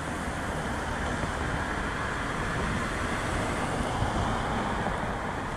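Road traffic noise, an even hiss of tyres and engines that swells slightly as a vehicle passes and eases near the end, with a low unsteady rumble of wind on the microphone.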